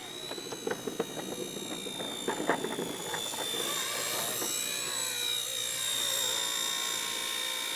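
Small electric RC helicopter (RotorScale OH-58C Kiowa, 150 size) in flight, its motor and rotors giving a steady high whine whose pitch wavers as it maneuvers and grows gradually louder. A few sharp clicks sound in the first three seconds.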